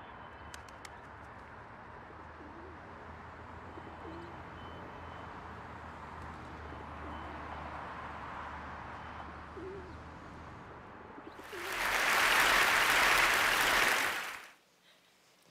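City background sound with a steady low rumble and pigeons cooing every few seconds. About three-quarters of the way through, a loud, even rush of noise comes in for about three seconds and then cuts off abruptly.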